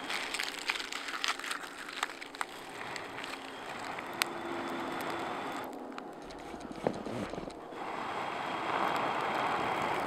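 Long breaths blown into a birch-bark tinder bundle holding a smouldering chaga ember, to coax it into flame, with crackling of the dry bark in the hands. The longest, loudest blow comes near the end.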